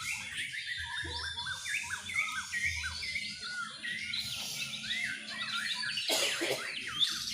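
Several caged white-rumped shamas (murai batu) singing at once in competition: a dense, overlapping run of varied whistles, chirps and quick pitch glides. A louder, fuller burst of sound comes about six seconds in.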